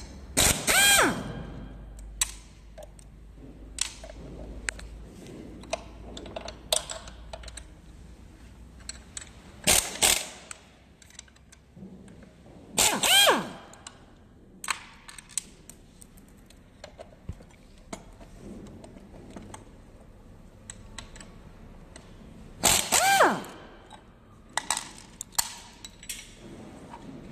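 Cordless drill-driver with a hex bit running in a few short runs as socket-head screws are backed out, its motor whine bending up and down in pitch each time it spins up and stops. Between the runs, sharp clicks and clinks of the loose steel screws and the tool against the metal plate.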